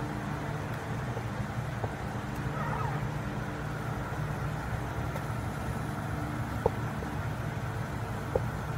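A black plastic spatula stirring chicken soup in a stainless steel pot, with two light taps against the pot near the end, over a steady low hum.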